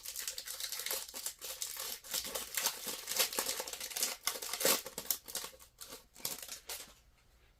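A trading card pack wrapper being torn open and crinkled by hand, a dense crackling that stops about seven seconds in.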